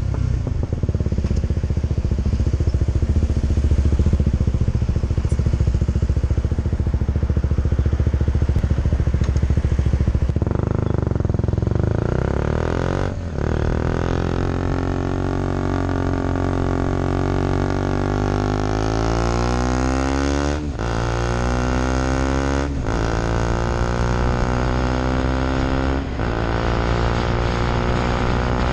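KTM 125 Duke's single-cylinder four-stroke engine running under way. It holds a steady low note for about ten seconds, then the revs climb repeatedly as the bike accelerates, dropping briefly at gear changes four times.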